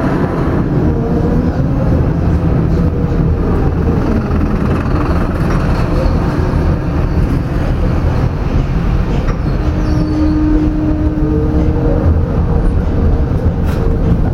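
Tram running along street track, heard from inside: a steady rumble of the wheels on the rails, with a held whining tone rising into a higher one about ten seconds in, and a couple of sharp clicks.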